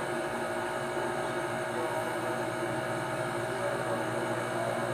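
Steady room hum with a few held tones under a faint even hiss, with no distinct event.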